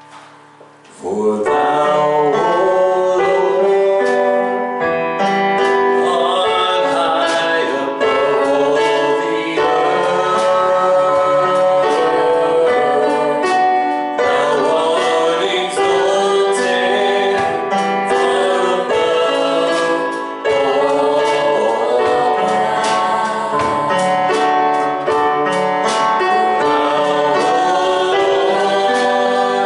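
Gospel worship song with singing and instruments, starting about a second in.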